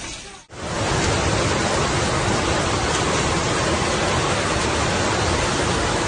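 Heavy rain and a torrent of floodwater making a steady, loud rushing noise. It cuts in abruptly about half a second in, after a brief dip in sound.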